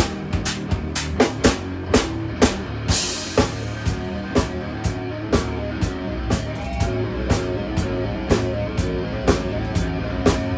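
Three-piece instrumental rock band playing live, with the drum kit to the fore: a steady beat of kick and snare hits over guitar, and a cymbal crash about three seconds in.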